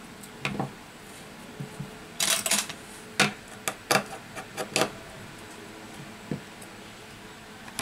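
Metal tweezers clicking and tapping on an opened iPhone 6, a string of sharp small clicks with a quick cluster about two seconds in, over a faint steady hum.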